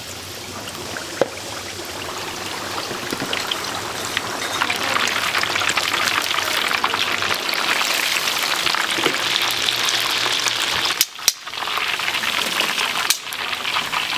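Chicken deep-frying in oil: a dense crackling sizzle that grows louder after about four seconds and breaks off briefly twice near the end.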